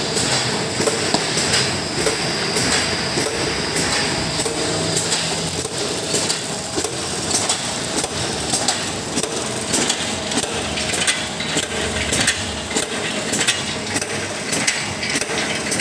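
Automatic shisha charcoal briquette packing machine running, a steady mechanical noise with frequent, irregular sharp clicks and clacks.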